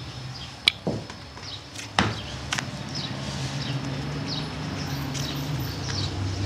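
Fingertips dimpling a round of raw bread dough on a floured cloth, with a few sharp taps (the loudest about a second and two seconds in), over a steady low hum.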